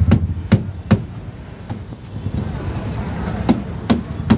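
Sharp knocks, three in quick succession about 0.4 s apart, then a faint single one, then three more near the end, over a low steady rumble.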